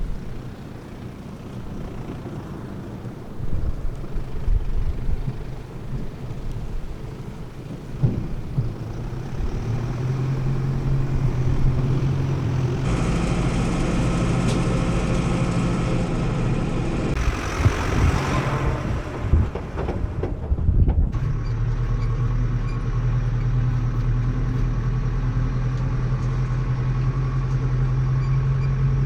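Heavy diesel engines of maize-harvest machinery running steadily, with a constant low hum; the engine sound shifts abruptly several times, about halfway through and again a few seconds later.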